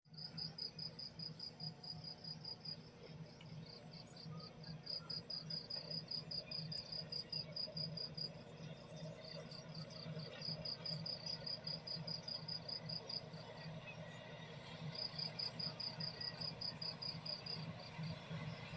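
Cricket chirping in long even runs of about four to five chirps a second, with a few short pauses, over a faint low hum.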